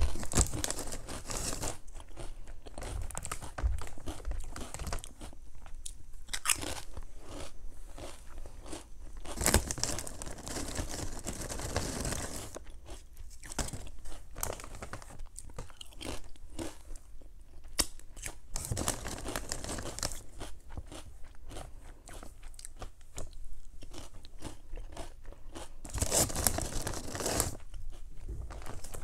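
Crunching and chewing of crisp chips, one mouthful after another.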